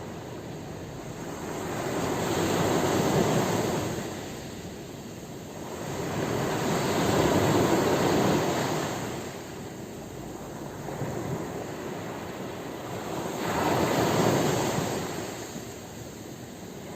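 Sea waves surging and washing in, rising and falling three times, each swell building and fading over a few seconds.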